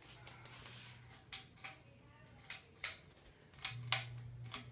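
Ceiling fan humming low and steady, with a run of sharp, irregular clicks; the hum swells briefly near the end.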